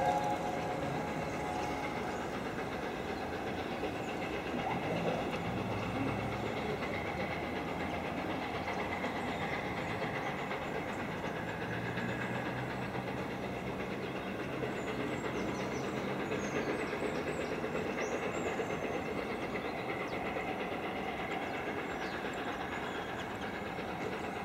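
Train of passenger coaches rolling past, wheels clicking over the rail joints, with a steady low engine rumble from the diesel locomotive on the rear.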